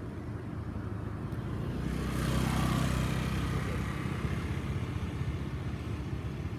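A motor vehicle passing by on the road. It grows louder to a peak about two and a half seconds in, then fades away over a low, steady rumble.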